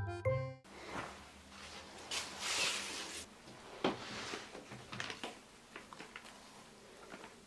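A few tinkling music notes end about half a second in. Then ribbon is pulled and tied into a bow on a paper-wrapped parcel, with faint rustling of ribbon and paper, a longer swish of ribbon sliding through, and small scattered clicks.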